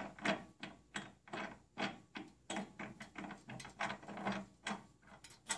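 A stainless steel eye bolt being unscrewed by hand from the frame's base mount, giving a steady run of short ratchet-like metal clicks, about three to four a second.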